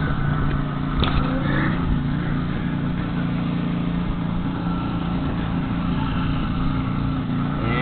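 An engine running steadily at an even pitch, with a short click about a second in.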